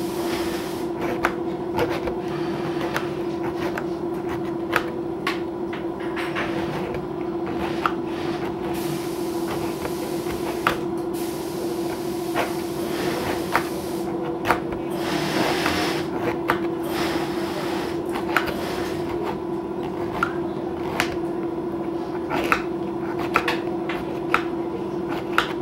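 Sharp, irregular clicks and knocks of tools and material being handled on a work table, over a steady low hum.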